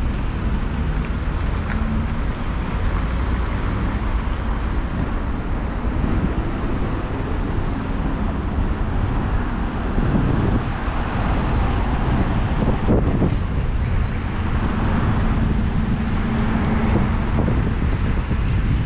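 Road traffic: car engines running and cars driving past, a steady low rumble with louder passes about ten and thirteen seconds in.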